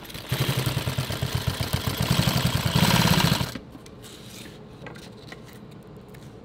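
Industrial sewing machine running: a rapid rhythmic stitching clatter that gets louder toward the end and stops about three and a half seconds in. A few faint clicks follow.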